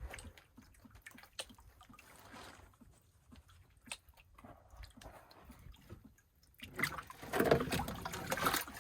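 Water sloshing and trickling in a gold pan as black-sand concentrates are worked slowly; faint for most of the time, with louder sloshing near the end.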